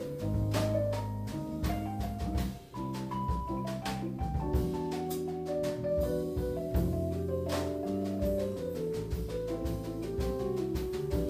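Live small-band jazz: a keyboard plays mellow, bell-like sustained chords and lines over an electric bass guitar and a drum kit with frequent cymbal strokes. No saxophone is playing.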